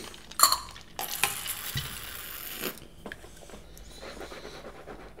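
A drink being slurped through a drinking straw: a hissing, sucking noise lasting about a second and a half, with a short sharp sound just before it.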